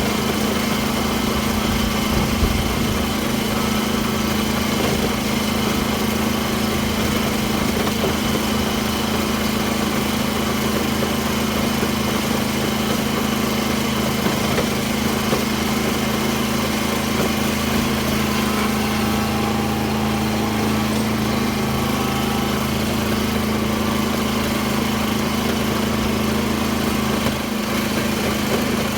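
Small farm tractor engine running steadily at a constant pitch while pulling a rotary tiller through the soil.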